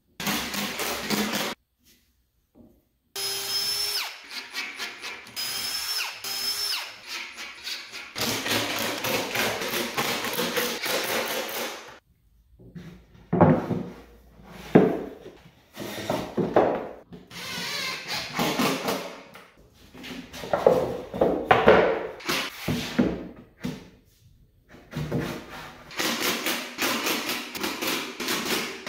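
Cordless impact driver driving screws into plywood panels in repeated bursts: a motor whir that rises in pitch as it spins up, and a rapid hammering rattle as screws seat. Between the bursts come irregular sharp knocks of the plywood panels being handled.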